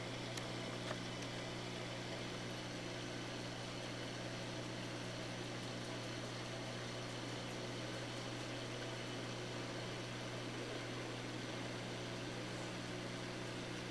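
Steady low hum over an even hiss from running saltwater aquarium equipment, such as a pump or filter, with a couple of faint ticks about a second in.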